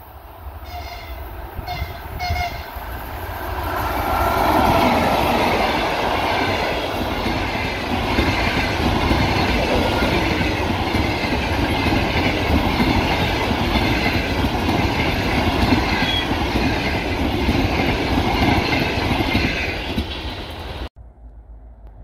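Electric locomotive sounding a few short horn toots on approach, then a passenger train passing close at speed, its locomotive and coaches rumbling and rushing by. The sound cuts off abruptly near the end.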